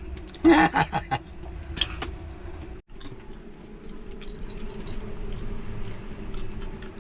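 Popcorn kernels popping in a lidded pot: scattered sharp pops and ticks over a steady low hum, with a louder burst about half a second in.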